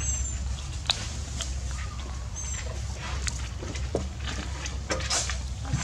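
Young macaques picking through gravel for food: scattered small clicks and scrapes of pebbles under their hands, with a couple of brief high chirps.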